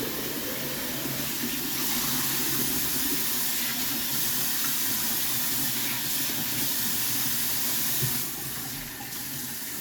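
Sink tap turned on hard, water running in a steady rush into the basin, easing a little about eight seconds in.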